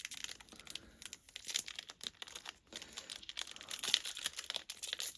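Trading-card pack wrapper crinkling with irregular crackles as it is handled and torn open.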